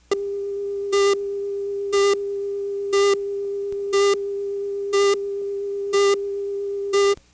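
Videotape countdown leader: a steady line-up tone with a louder, buzzier beep marking each second of the countdown, seven beeps in all, then the tone cuts off suddenly.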